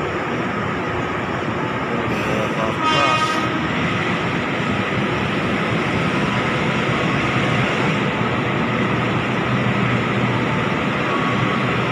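Passenger train carriages rolling along the track past a station platform, a steady rumble of wheels on rails. About two to three seconds in, a short high-pitched toot sounds over it.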